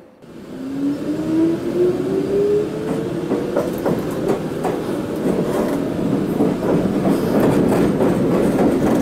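Meitetsu electric train pulling away: the traction motor whine rises in pitch over the first few seconds as it accelerates. Wheels click over rail joints, more and more often as it gathers speed.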